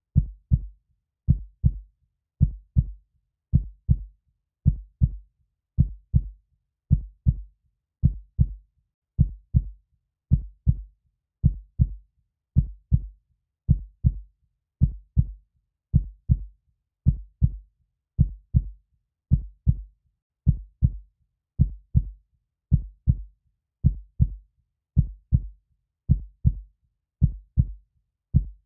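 Heartbeat: steady, regular lub-dub double thumps, a loud low beat followed closely by a softer one, a little faster than once a second.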